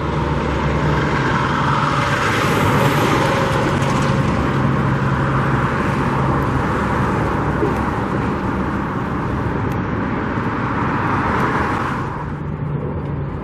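Road traffic: cars passing close by, a steady rush of tyre and engine noise that eases off near the end.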